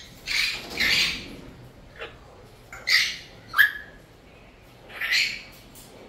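Sulphur-crested cockatoo giving a series of short, harsh squawks, about one a second with short pauses between.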